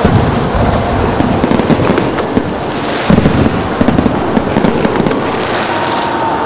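Fireworks finale: aerial shells bursting in quick succession with dense crackling, the loudest bangs coming about three to four seconds in.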